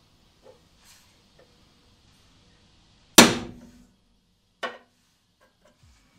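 Spring-loaded automatic center punch snapping against the car's sheet-steel body panel: one sharp crack with a short metallic ring, then a quieter second snap about a second and a half later. It is marking the drill points so the bit won't walk when drilling out the spot welds.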